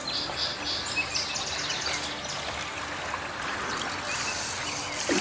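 Small birds chirping and trilling over a quiet river background, with a hiss of splashing water near the end as the hooked carp thrashes in the shallows.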